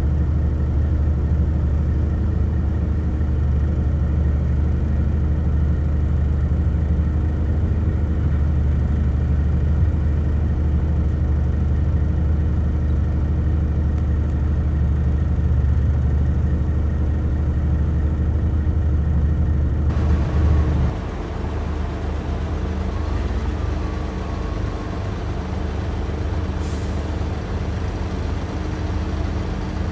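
Scania V8 truck engine on an open straight pipe running at low revs with a deep, steady drone, mixed with the diesel of a working wheel loader. About two-thirds of the way through the sound changes suddenly to a lighter, slightly quieter engine sound.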